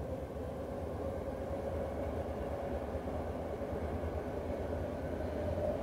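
Inside a BART subway car as the train runs: a steady low rumble, with a faint humming tone that rises slightly near the end.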